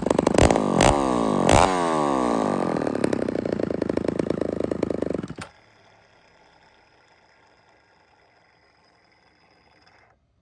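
Homelite Super XL two-stroke chainsaw, freshly ported, running at high revs with no bar or chain fitted, its pitch dropping and rising. It stops suddenly about five seconds in, leaving only a faint hum. The owner says it runs strong but still needs crank seals, because the tune keeps wandering and it dies at idle when tipped on its side.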